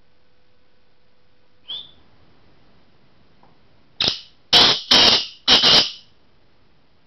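Caged black francolin calling: a single short note, then about two seconds later a loud, harsh phrase of four grating notes in quick succession.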